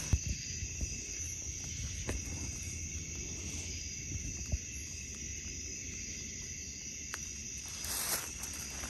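Night insects trilling steadily in a constant high chorus, with a few soft footsteps and rustles in dry leaf litter and a louder rustle near the end.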